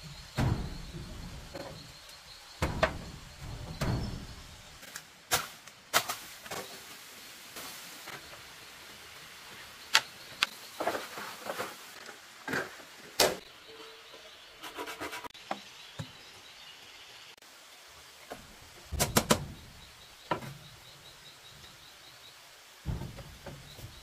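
Irregular knocks and sharp clacks of bamboo being handled and worked, some in quick clusters, with a few dull thuds in the first few seconds. A faint high insect trill runs underneath for most of the time.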